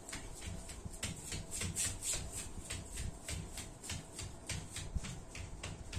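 A young child's rapid, forceful breaths in a pranayama breathing exercise: short sharp puffs, about four or five a second.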